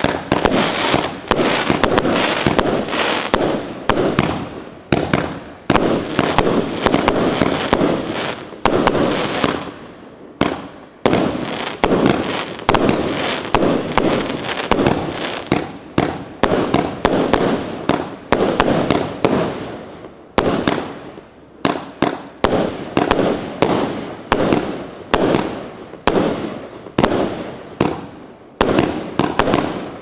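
A 49-shot, 1-inch consumer fireworks cake firing its shots in quick succession. Each shot starts suddenly and trails off, and they come close together, settling into a steady run of about one to two a second toward the end.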